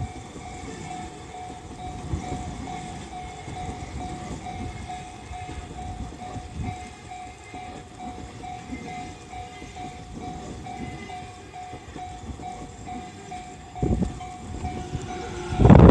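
Japanese level-crossing alarm bell ringing steadily while a Tobu Tojo Line train rumbles and clatters past. Two louder bursts of noise come near the end, the second the loudest.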